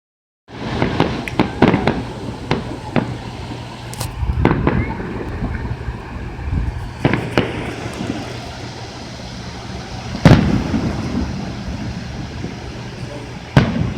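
Fireworks going off: a quick string of sharp cracks in the first few seconds, then scattered single bangs, the loudest about ten seconds in.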